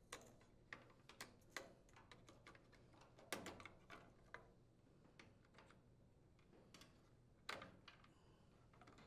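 Faint, irregular plastic clicks and rattles of wire-harness connectors being worked loose and unplugged from a Whirlpool electric dryer's control board. The loudest clicks come about a third of the way in and again near the end.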